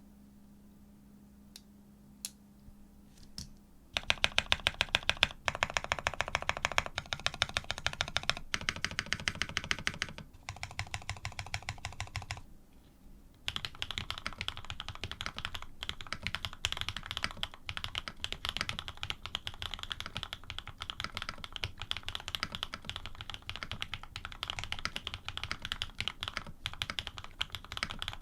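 Typing on an AR87 mechanical keyboard with linear switches (Cream stems in Cherry housings, Krytox 105 lube), PBT keycaps and an aluminium plate. A few single key presses come first, then fast typing from about four seconds in, a short pause a little before halfway, then steady typing.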